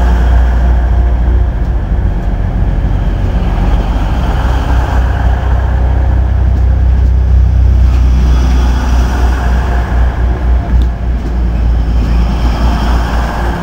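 A First Hull Trains Class 180 diesel multiple unit's underfloor diesel engine running beside the platform, a loud, deep, steady rumble. About eight seconds in the low note turns rougher and less even.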